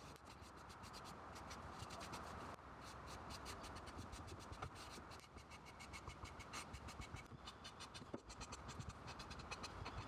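Cloth rag rubbing stain into the wooden case of a mechanical metronome: faint, quick scratchy rubbing in many short strokes.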